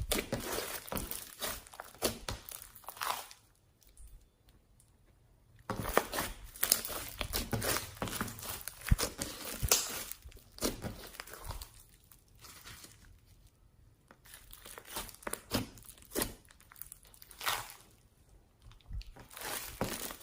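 Slime being squeezed and mixed by hand: irregular sticky crackling and popping, with a few short pauses.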